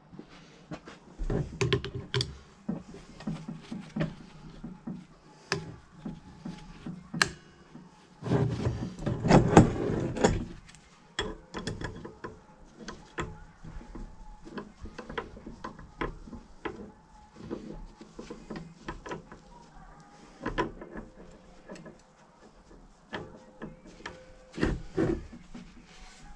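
Steering track rod parts being handled on a wooden workbench: scattered clicks and knocks of metal on wood, with a louder run of clattering about nine to ten seconds in.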